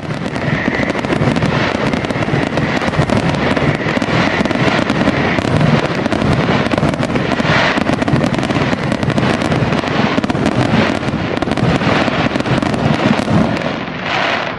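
Fireworks display going off in a dense, unbroken barrage of rapid crackling and popping, with a steady high hiss under it for the first five seconds or so.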